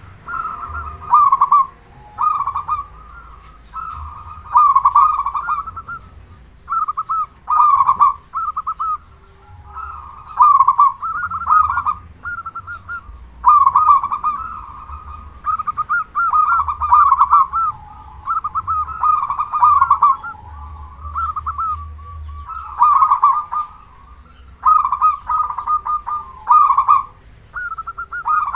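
Zebra dove (local Indonesian perkutut) cooing loudly, phrase after phrase of rolling coos, each phrase a second or two long with short pauses between.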